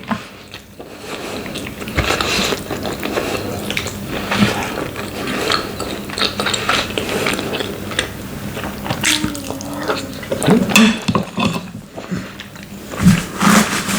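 Close-up eating sounds: wet chewing with irregular mouth clicks as boiled meat and khinkal dough are chewed.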